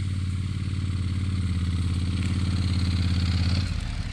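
Honda NC750X motorcycle's parallel-twin engine running at low speed as the loaded bike creeps over the forest floor toward the camera, growing slightly louder. About three and a half seconds in, the engine note drops and eases off.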